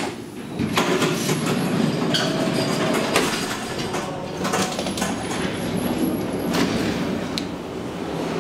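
Inside a 1967 Flohr-Otis traction elevator car as it travels: a steady rumble with rattles and several sharp clunks from the car and its doors.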